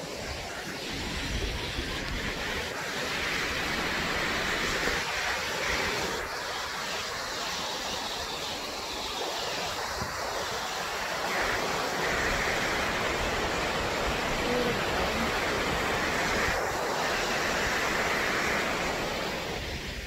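Steady rush of a waterfall cascading down a rock face, with uneven wind rumble on the microphone.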